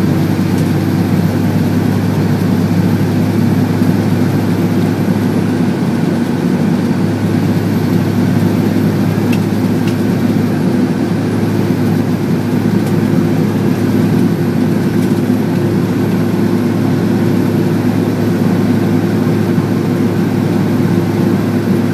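Fire engine's diesel engine and road noise heard from inside the cab while driving, a loud steady drone.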